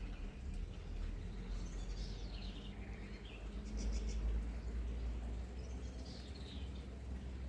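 Small birds calling with short, twittering song phrases, twice: one a second or two in and another around six seconds in, over a steady low rumble.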